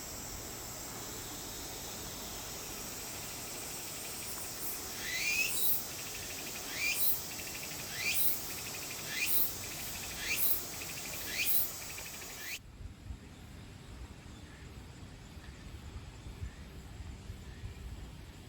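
A bird calling outdoors: six short, sharply rising chirps about a second apart over a steady hiss. The hiss drops away abruptly near the end.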